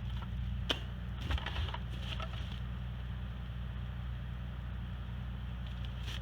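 An engine idling steadily with a low even hum, with a few sharp clicks or knocks in the first two seconds.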